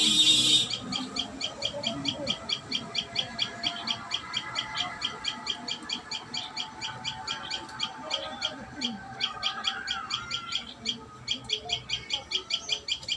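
Common tailorbird chirping in a fast, even series of short high notes, about five a second, after a snatch of music that cuts off about half a second in.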